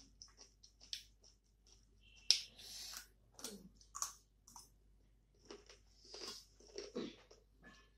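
Close-up chewing: wet mouth smacks and clicks with the odd crunch, at an irregular pace, as food is eaten by hand.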